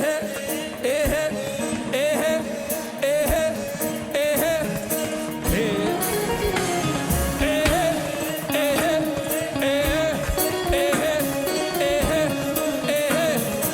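Live gospel worship music: a band playing over a steady drum beat, with singing carrying a wandering melody.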